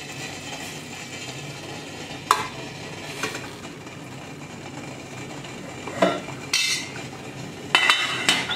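Water bubbling at the boil in a stainless steel idli steamer pot, a steady hiss throughout. Several sharp metal knocks and clinks as the idli plate stand is lowered in, and a clatter near the end as the steel lid is set on.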